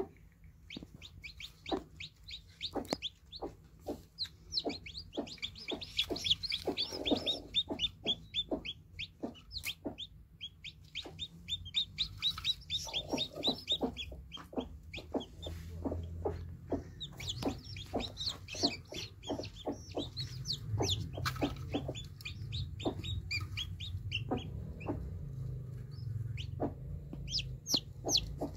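Newly hatched chicks peeping: many short, high calls in fast runs, overlapping from several birds, with a low hum underneath in the second half.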